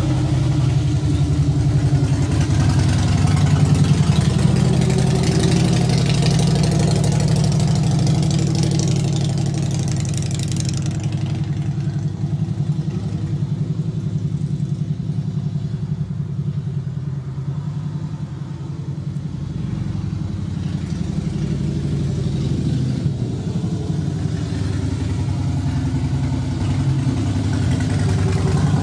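Harley-Davidson motorcycle's V-twin engine running as the bike rides past. The sound fades as it moves off into the distance in the middle stretch, then grows loud again as it comes back close near the end.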